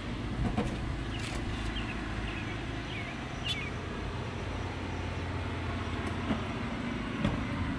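Steady low background rumble, with a few light metal clicks from retaining pins being pushed into a grill's slide-out mounting arms and a few short high chirps about one and three seconds in.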